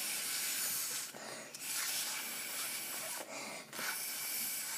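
Long breaths blown hard through a straw into slime to inflate a big bubble, a steady airy hiss with two short pauses for breath, about a second in and near three seconds in.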